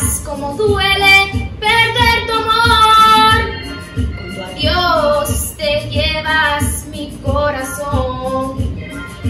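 A young female voice singing a melody over backing music with a steady beat.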